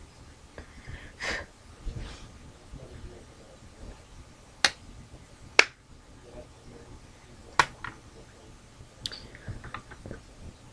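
A soft rustle about a second in, then four separate sharp clicks a second or two apart.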